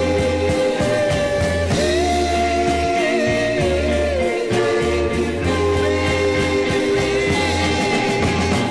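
An oldies soul ballad record playing: a singer holds a long, slightly wavering note over a steady bass line and backing band.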